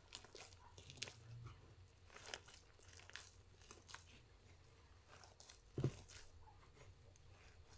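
Faint crunching and crackling of a hand squeezing and turning a dry mix of ground corn and crumbled cheese in a plastic basin, with a single soft knock about six seconds in.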